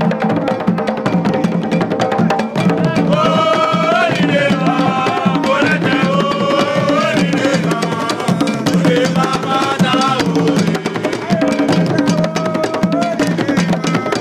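Kpanlogo rhythm on Ghanaian hand drums, dense rapid strokes with a clicking bell-like timeline part. About three and a half seconds in, a group of men's voices comes in singing over the drums, pauses briefly, then sings again near the end.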